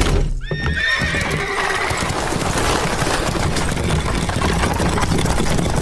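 A horse whinnies about half a second in, and then a team of chariot horses gallops in a dense rush of pounding hooves.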